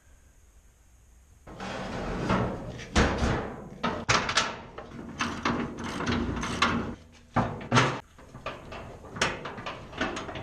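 Irregular clanking and knocking of a snowplow wing extension and its mounting brackets and bolts being worked into place against the plow's metal blade. It starts about a second and a half in.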